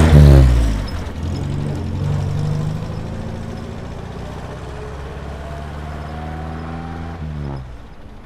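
Bus engine pulling away and fading into the distance. Its pitch drops sharply just after the start and again near the end.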